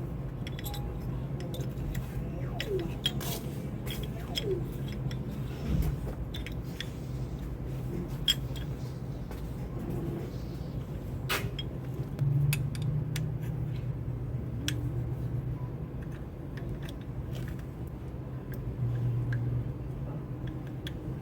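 Scattered small metal clicks and clinks of tools and brake parts being handled, over a steady low hum.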